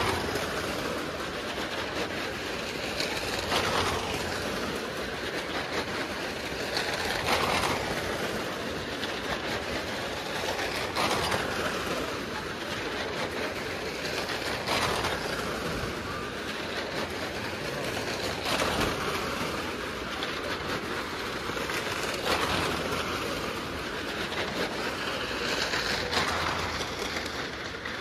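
A small car's engine running hard as it circles the vertical wooden-plank wall of a well-of-death pit, with rumbling from the planks. The sound swells each time the car sweeps past, about once every four seconds.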